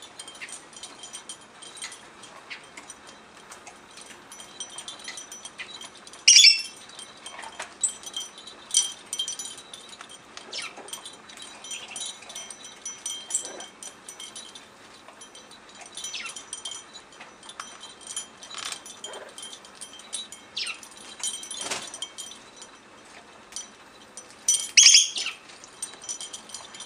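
Small metal cowbells on a hanging cage toy ringing in irregular clinks and jangles as an umbrella cockatoo plays with it. The loudest jangles come about six seconds in and near the end.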